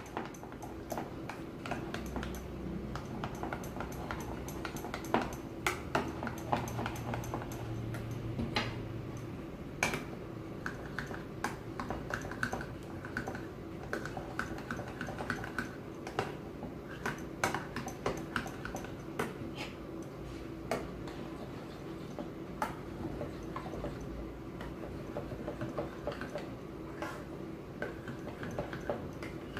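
Metal spoons stirring curd in small ceramic bowls, with frequent light clinks and taps of spoon against bowl, over a faint steady hum.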